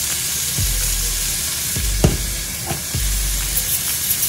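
Strip of beef sizzling in a little oil in a frying pan, a steady hiss, with a single click about two seconds in.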